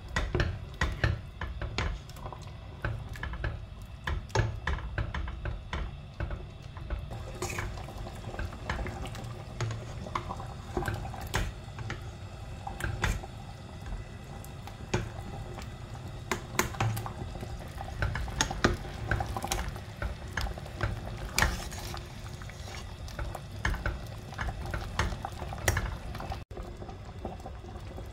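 A spatula stirring a thick beef stew in a stainless steel stockpot: irregular knocks and scrapes of the utensil against the pot, with liquid sloshing, over a low steady rumble of the stew bubbling.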